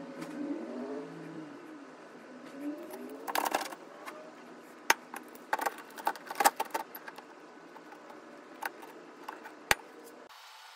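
Metal clicks and clatter of toggle clamps being set on a perforated steel workbench: the clamps' threaded posts are fitted into the bench holes and the levers snapped down, after a few seconds of soft handling noise.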